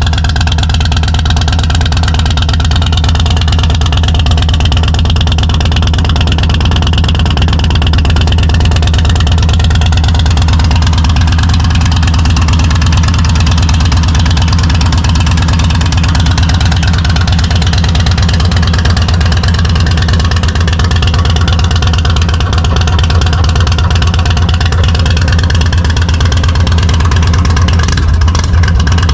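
Indian Sport Chief's Thunderstroke 116 V-twin running steadily through its exhaust, with background music.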